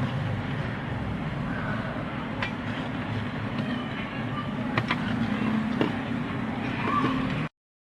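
Steady low hum and background rumble with a few sharp small clicks, such as tools touching the charger's circuit board while diodes are desoldered; the sound cuts off abruptly to silence near the end.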